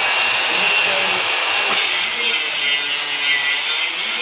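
A power tool running steadily under load, cutting or grinding. The sound gets noticeably brighter a little under two seconds in.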